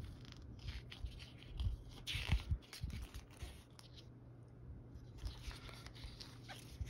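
Pages of a paper photobook being turned and handled: soft paper rustles with scattered light taps.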